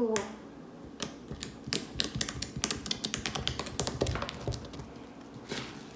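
Fingers poking and squeezing borax-activated fluffy slime, making an irregular run of small wet clicks and pops that comes thickest in the middle.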